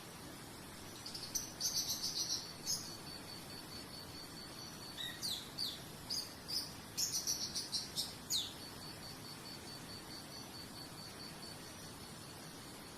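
Birds chirping in two short bursts of quick, high notes, some sweeping downward, over an insect's steady, even, high-pitched pulsing trill and a constant soft hiss.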